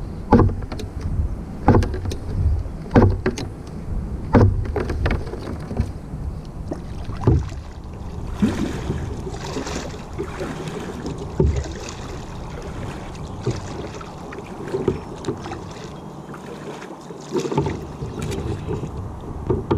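Small boat on a pond being worked: a run of sharp knocks on the hull, one every second or so, then rougher splashing and rustling of water and gear against the boat, with a few more knocks.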